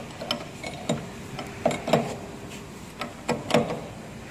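Scattered clicks and knocks of steel spanners being handled on a CNC router's table during a bit change on the spindle collet, the loudest coming in two pairs about a second and a half apart.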